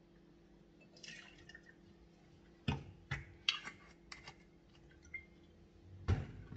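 A short splash of Campari poured into a metal cocktail shaker, followed by several sharp clicks and knocks as the bottle and bar tools are handled and set down. A heavier knock comes near the end, and a faint steady hum runs underneath.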